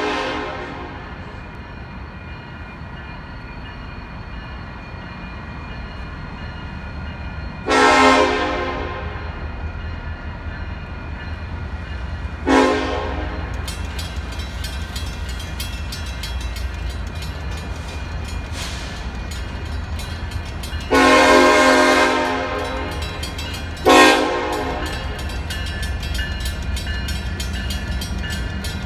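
Diesel locomotive air horn sounding a multi-note chord in separate blasts, long and short, the grade-crossing warning: a long blast about 8 s in, a short one a few seconds later, then a long and a short near the end. Under it the locomotive's low rumble slowly grows as the train comes closer, and from about halfway a crossing bell rings with a fast, even ding.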